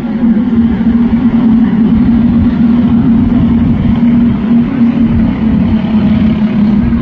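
Several kid karts racing on a dirt oval, their small engines running hard together as one steady, unbroken drone.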